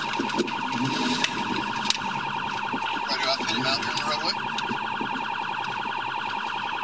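Police cruiser's electronic siren heard from inside the car during a pursuit: a steady high tone pulsing rapidly without a break.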